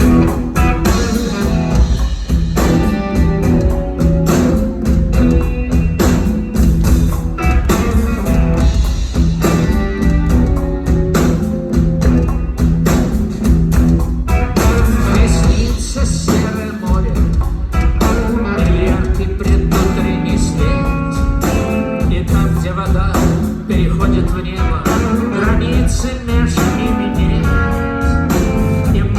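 Rock band playing the instrumental intro of a song live, guitar over a steady bass line and drum beat.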